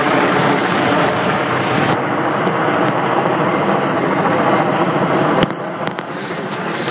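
Helicopter flying overhead: a steady rotor and engine noise. A sharp click comes about five and a half seconds in, and the sound is a little quieter after it.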